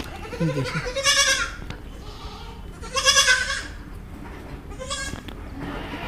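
Week-old goat kids bleating as they are picked up: three high, quavering bleats about two seconds apart, the last one short.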